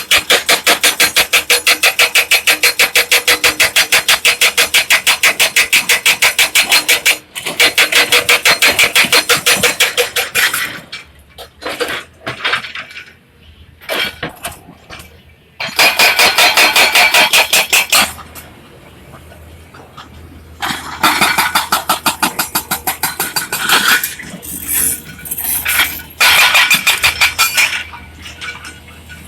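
Excavator working: a loud, rapid, even pulsing machine sound that runs for several seconds, then stops and starts again in shorter bursts, with a low hum in the gaps.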